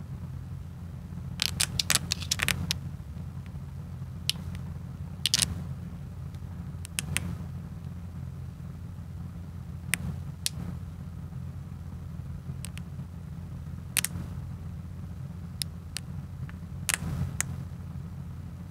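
Retort curry pouches crinkling in the hands in short bursts, several times over, above a steady low hum.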